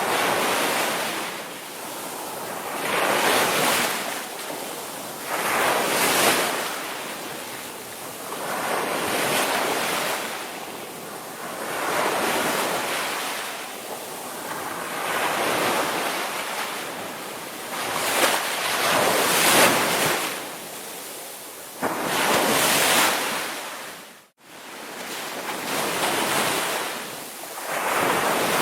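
Ocean surf: waves breaking and washing in, swelling and easing about every three seconds. The sound drops out for a split second about three-quarters of the way through.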